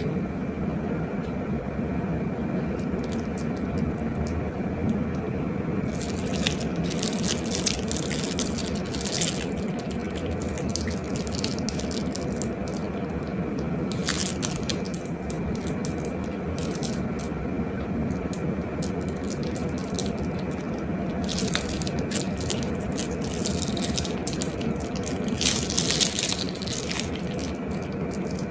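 Glossy slime being worked by hand, giving bursts of wet crackling and squishing that come in clusters and grow strongest near the end, over a steady low hum.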